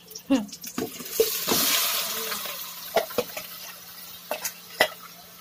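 Raw chicken pieces dropped into hot oil with sautéed garlic and onion, setting off a loud sizzle about a second in that slowly dies down. A metal ladle knocks against the metal pots several times.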